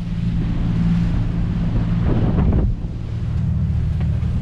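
Mainship 390 trawler running underway: the steady low drone of its diesel engine under wind buffeting the microphone and water rushing past the hull, with a louder rush of wind about halfway through.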